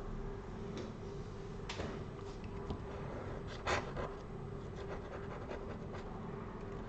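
A chisel-tipped X-Acto blade scraping leftover screen adhesive off an iPad frame in short strokes, two louder scrapes about two and four seconds in, over a steady low hum.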